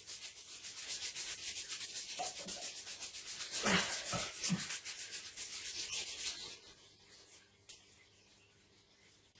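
A hand rubbing quickly back and forth over a wax strip pressed onto a leg to warm the wax. It makes a fast, rhythmic swishing that stops about two-thirds of the way through.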